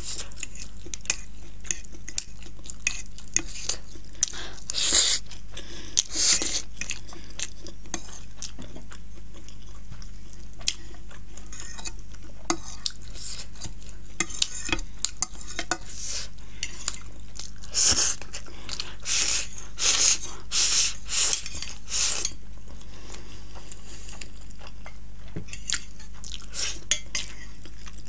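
A metal fork scraping and clinking on a plate as the last noodles and sauce are gathered up, in short bursts with chewing between. A steady low hum runs underneath.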